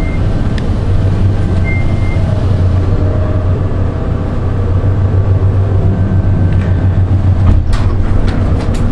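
Elevator ride: a loud, steady low rumble, with two short high beeps early on and a few sharp clicks near the end.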